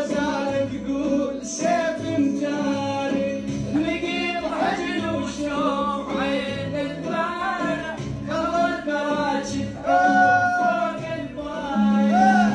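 Arabic song: a male voice singing with melodic runs over a steady instrumental accompaniment.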